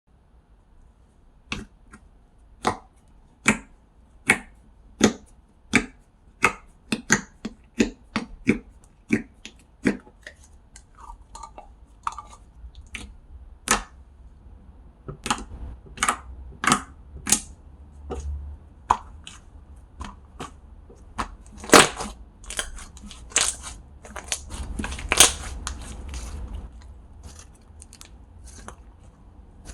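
Handmade slime being squeezed and poked by hand close to the microphone, giving a run of sharp pops and clicks. The pops come about once a second at first, then faster and more crowded, turning into a denser crackle in the second half.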